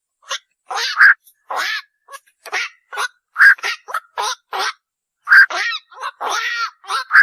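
Lure recording of koak (black-crowned night heron) calls: a rapid series of short, harsh croaks, about two a second, with one longer call near the end.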